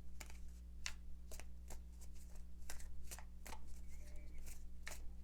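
A tarot deck shuffled by hand: quick, irregular papery clicks and slaps of cards, several a second.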